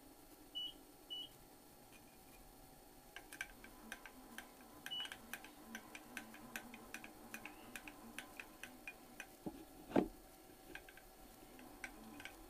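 Short high electronic beeps from a milling machine's control keypad: two close together about half a second in, and one more midway. After that comes a run of irregular sharp clicks while the mill table is positioned, with one louder knock near the end.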